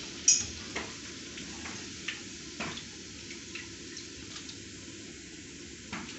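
Hot oil sizzling steadily in a wok where pakoras are deep-frying, with a few sharp ticks scattered through it, the loudest just after the start.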